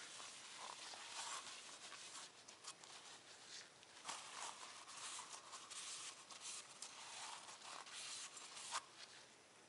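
Faint rubbing and scuffing of a shop rag and gloved hands wiping oil from the inside and outside of a Mighty oil filter's thin steel can, with a few light metal clicks.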